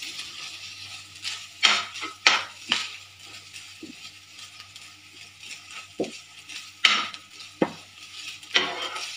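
A metal utensil stirring shredded chicken and mayonnaise in a nonstick frying pan, with about eight irregular scrapes and knocks against the pan.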